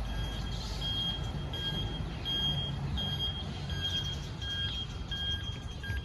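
Garbage truck's reversing alarm beeping at a steady pitch, about eight short beeps evenly spaced, over the low rumble of the truck's engine.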